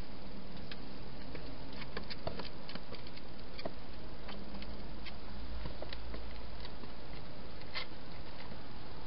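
Scattered small clicks and patters from a wild hedgehog moving about and feeding inside a plastic feeding box, thickest a couple of seconds in, with one sharper click near the end. Under them runs a steady hiss.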